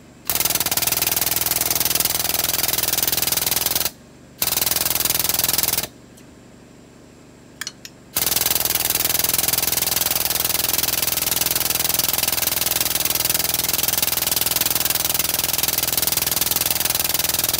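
Air-over-hydraulic pump for a 10-ton porta-power kit running on compressed air on its first test, in a fast, even chatter with hissing air. It runs three times with the pedal held down: a few seconds, then briefly, then on without stopping from about eight seconds in.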